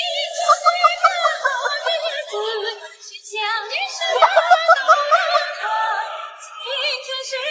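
Background music: a song with a high-pitched female vocal whose notes waver up and down.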